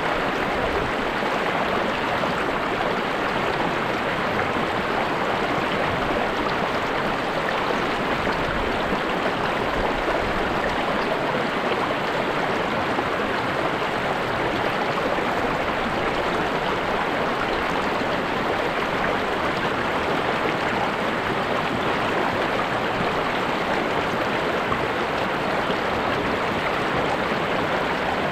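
A river or stream flowing over rocks, a steady rushing and babbling that holds even throughout.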